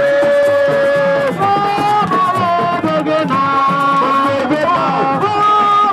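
Music: a melody of long held notes that step and slide between pitches, over a steady drum beat.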